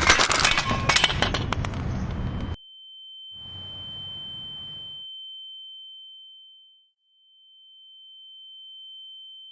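A loud, noisy clatter full of clicks cuts off abruptly, and a single steady high-pitched electronic tone takes over. The tone swells and fades in loudness and drops out briefly near the middle.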